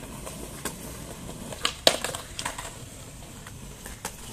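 BMX bike rolling on concrete, with several sharp clacks and knocks from the bike; the loudest knock comes about two seconds in.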